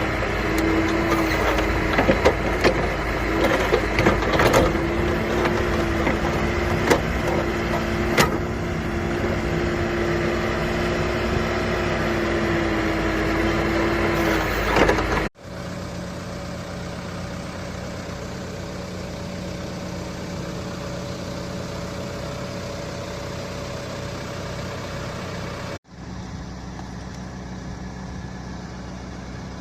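Construction machine's engine running, with a steady whine and scattered knocks and clanks through the first half. It cuts off abruptly about halfway, and the engine runs on more quietly, with another abrupt cut near the end.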